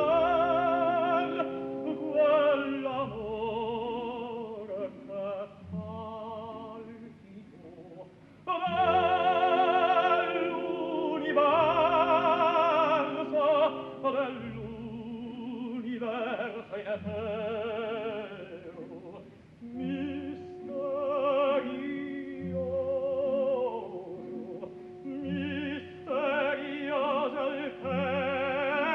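Operatic singing with wide vibrato over held orchestral chords, in phrases with short breaks.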